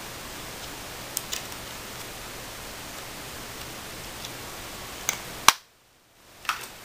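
Steady background hiss with a few faint clicks. A sharp click about five and a half seconds in, then the sound drops out completely for about a second before the hiss returns.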